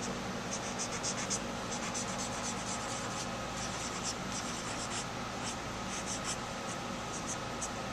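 Cotton swab rubbed in short back-and-forth strokes on a photographic print, working oil paint into small areas. It gives soft, scratchy strokes in uneven runs over a steady low room hum.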